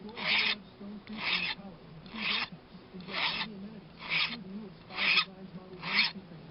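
Hand file rasping across the end of a coiled wire hinge to square it flat: seven even strokes, about one a second.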